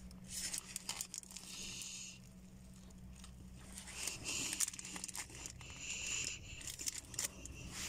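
Paper wrapper crinkling and rustling in irregular short bursts as a wrapped sandwich is handled, over a low steady hum.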